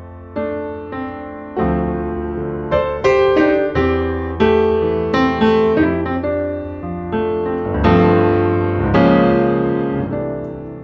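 Piano music: chords and single notes struck one after another, each dying away before the next.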